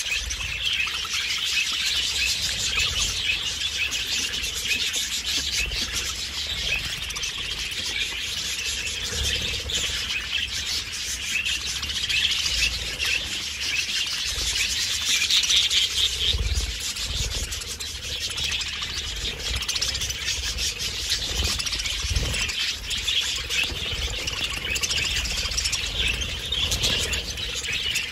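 A flock of budgerigars chattering, a dense, unbroken warble of many overlapping chirps.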